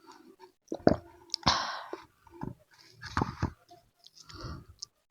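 Close-miked eating sounds: irregular chewing with small clicks and wet mouth noises, and a louder noisy smack or crunch about one and a half seconds in.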